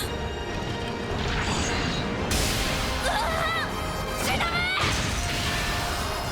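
Cartoon battle sound effects: crashing impacts and whooshes over background music, with short warbling electronic tones in the middle.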